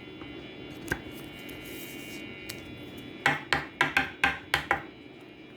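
One sharp click, then a quick run of about seven sharp taps on a hard surface, about four or five a second.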